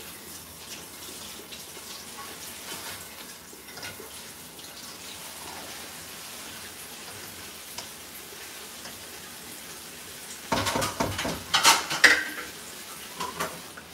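Aloo qeema cooked down until its oil has separated, sizzling steadily in a pan on a gas stove. About ten seconds in comes a couple of seconds of louder clatter and scraping, a metal spatula against the pan.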